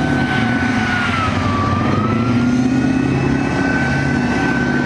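CV9030 tracked infantry fighting vehicle driving: its V8 diesel runs under load with a high whine that dips in pitch about a second and a half in, then rises back and holds, over the clatter of the tracks.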